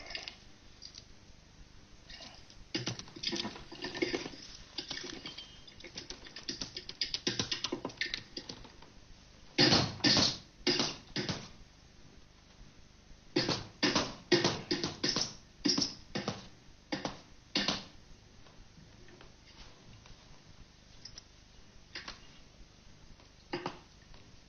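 Irregular series of quick brush strokes slapping and swishing paint onto a large canvas. They come in clusters, loudest about ten seconds in and again a few seconds later, with fainter strokes in between.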